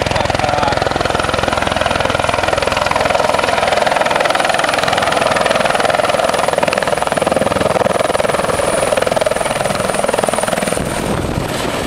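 Turbine helicopter coming in to land, its main rotor and engine loud and steady, with a thin high whine over them. It settles onto its skids near the end.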